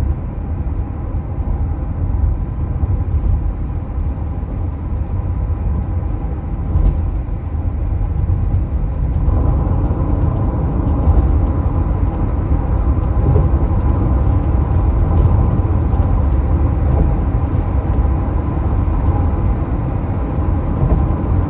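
Hyundai Tucson running, a steady low rumble with a rattle in it, a few faint ticks standing out; the sound grows fuller from about nine seconds in.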